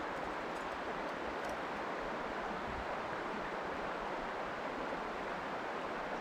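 Steady rush of a stream's flowing current, with a few faint ticks in the first second and a half.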